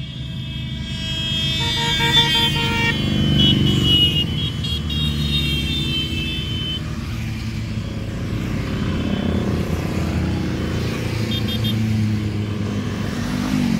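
A procession of motorcycles riding past, their engines running, with vehicle horns honking in long blasts and short toots over the first several seconds.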